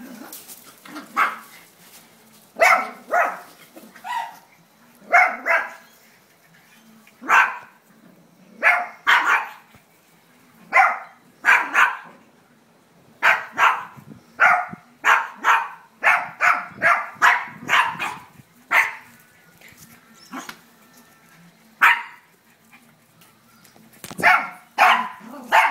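Maltese dogs barking over and over, sharp short barks that come singly, in pairs and in quick runs, with the densest run in the middle.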